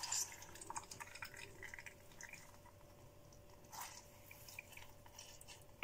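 Faint, irregular drips and small splashes of grapefruit juice falling from a hand-squeezed grapefruit half into a plastic jug of juice, with a slightly stronger drip about four seconds in.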